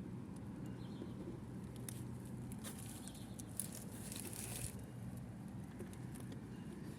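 Light rustling and scattered small clicks of packaging being handled during an unboxing, with a short longer rustle about four seconds in, over a steady low hum.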